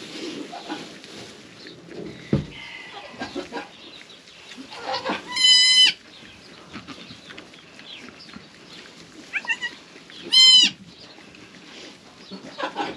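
Newborn goat kid bleating twice, short high-pitched cries about five and ten seconds in, over the soft rustle of straw and a towel rubbing the wet kid dry. A single dull thump sounds about two seconds in.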